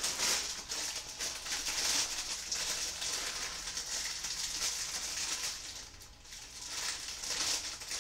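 Crinkling and rustling as kale is handled and prepared, coming in uneven surges that ease off briefly about six seconds in.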